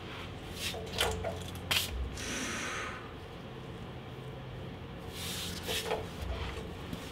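Metal knocks and clinks of a Humvee's front drive shaft being worked loose by hand, with a short sliding scrape about two seconds in and a few more knocks near the end.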